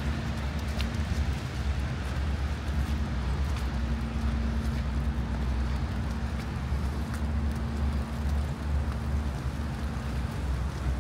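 Steady outdoor rumble: a constant low motor-like hum under a wash of wind and street noise.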